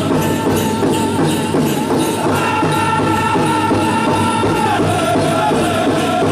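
Southern-style powwow drum and singers: a steady drumbeat under high held unison singing, the melody dropping in pitch about three-quarters of the way through.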